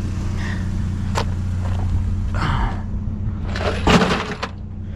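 A vehicle engine idling steadily, with rummaging noises over it: a click about a second in, a short rustle, and a louder rattling clatter about four seconds in.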